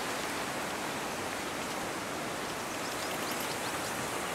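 Steady, even hiss of outdoor background noise, with a few faint high chirps about three seconds in.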